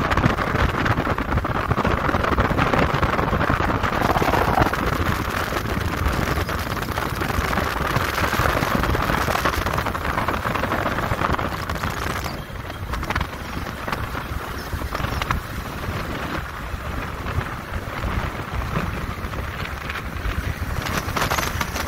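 Steady wind rush and road noise from a moving motorcycle, with the engine running underneath.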